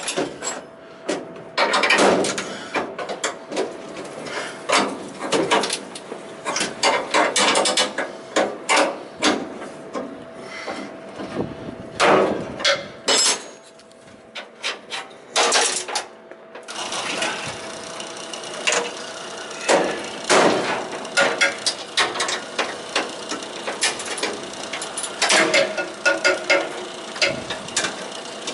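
Metal hand tools knocking and clanking at irregular intervals, some strikes ringing briefly, as bolts are worked loose from a steel assembly. A faint steady hum sits underneath.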